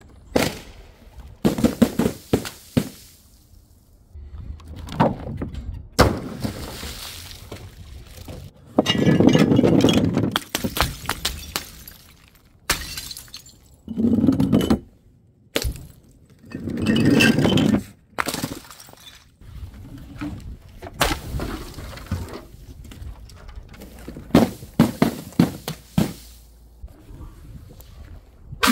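Glass bottles and jars being smashed: a string of sharp breaking impacts and clinks, with three longer shattering crashes, each lasting a second or more, around the middle.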